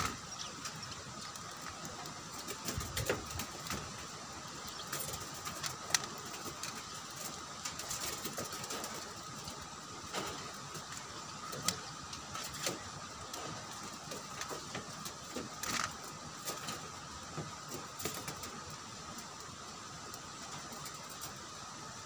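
Steady low hiss and hum of outdoor background, with a faint steady tone and short sharp clicks or chirps now and then.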